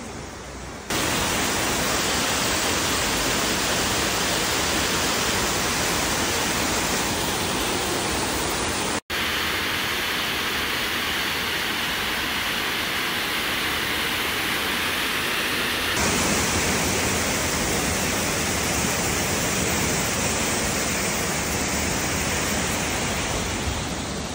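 Loud, steady rushing of a mountain stream and waterfall tumbling over rocks. The sound cuts out for an instant about nine seconds in, and its tone shifts there and again about seven seconds later.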